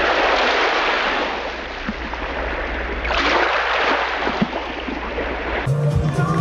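Surf washing onto a beach: a steady rush of wave noise that swells twice, about three seconds apart. Music with a beat cuts in near the end.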